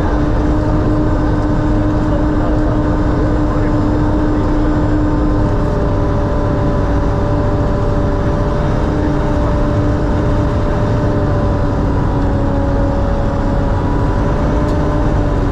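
Sherp amphibious ATV's diesel engine running steadily while the vehicle drives, heard from on board: a constant low rumble with a steady whine over it, the pitch dipping slightly near the end.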